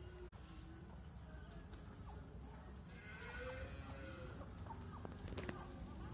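Aseel chickens clucking and calling faintly over a steady low hum, with a couple of sharp clicks near the end.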